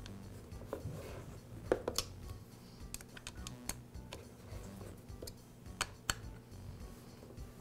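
Scattered light clicks and taps of a small metal hex key and hands working the clamp screw on a Black and Decker string trimmer's plastic head, as the clamp is loosened. A few sharper clicks stand out, about two seconds in and again near six seconds.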